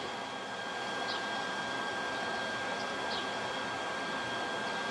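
Steady outdoor city background noise, an even rushing hiss, with a faint high steady whine and a few very short high chirps.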